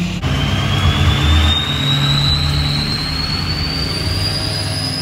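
Diesel pickup truck engine running as the truck pulls away, with a turbocharger whistle rising slowly in pitch over a low engine rumble.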